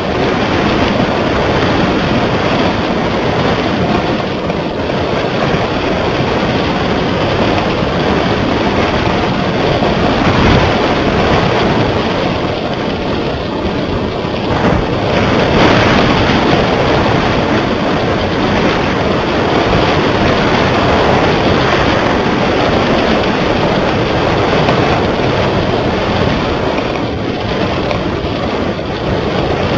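Loud, steady wind rushing over the microphone of a small camera tied to a flying kite, swelling and easing a little.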